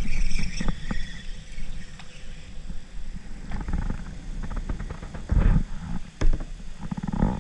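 Uneven low rumble of wind and handling noise on the microphone, with scattered knocks and clicks as a spinning rod and reel are worked while bringing in a fish.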